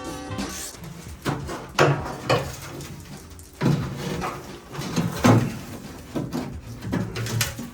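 Irregular knocks and clunks of hard objects being handled and set down, with about half a dozen louder thuds scattered through.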